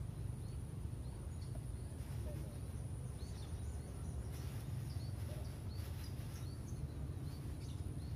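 Outdoor ambience: a low steady rumble, a bird giving short repeated chirps about once or twice a second, and a steady high-pitched insect drone.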